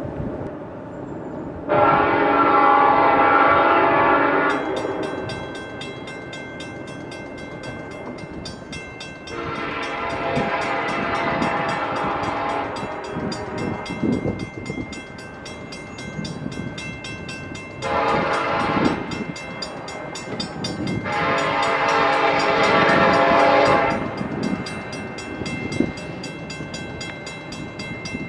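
Locomotive's Nathan K5LLA five-chime air horn sounding the grade-crossing signal: two long blasts, one short, and one long, with the train's rolling noise between blasts.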